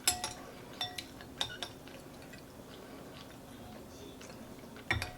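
Spoon clinking against a soup bowl, four or five ringing clicks in the first couple of seconds, then a duller knock near the end.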